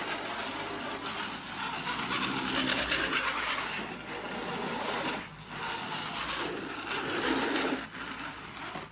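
Small electric drive motors and 3D-printed TPU belts and pulleys of a remote-controlled cart running with a rough, grinding whirr as it drives over carpet, broken by short pauses about four, five and eight seconds in.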